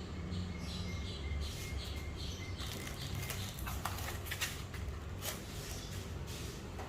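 Packaging being handled during an unboxing: scattered rustles and light clicks over a steady low hum, the clicks mostly from about a second and a half in.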